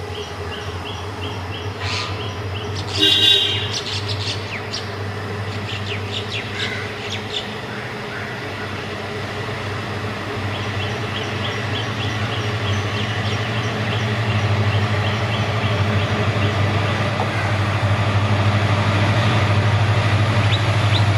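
EMD WDP4 diesel locomotives working in multiple, their two-stroke engines running with a deep steady drone that grows louder as the train approaches. Birds chirp and trill in the first several seconds.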